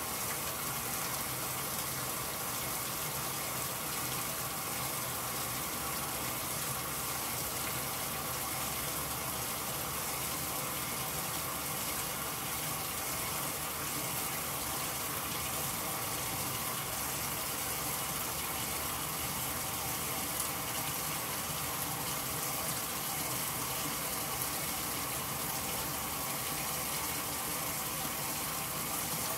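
Fill water gushing steadily into the tub of a Whirlpool Supreme belt-drive top-loading washer, splashing onto the load as the tub fills.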